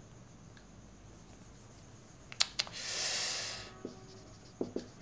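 Marker pen writing on a whiteboard: a couple of sharp taps, then one scratchy stroke lasting about a second, and a few light ticks near the end.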